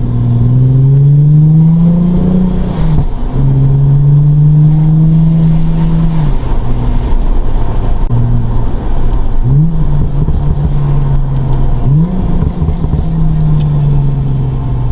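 Lexus IS350's tuned 2GR-FSE 3.5-litre V6, breathing through an Invidia midpipe and a Manzo axle-back exhaust, revving under acceleration. Its note rises, drops sharply about three seconds in and holds steady. After lift-off it crackles on the overrun, then picks up quickly twice more before easing off near the end.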